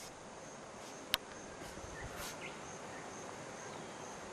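Faint outdoor ambience with a steady, high-pitched insect chirring, and one sharp click about a second in.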